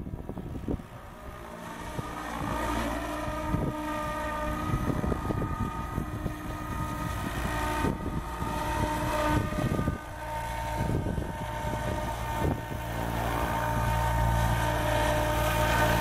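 SAB Goblin 770 electric RC helicopter's motor and rotors whining steadily. The whine rises in pitch about two seconds in, then holds, and grows louder with a deep rotor hum as the helicopter comes down to hover low.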